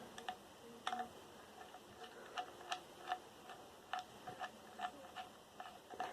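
Small Torx screwdriver working screws out of a computer hard drive: a run of light, irregular metallic ticks, roughly two a second.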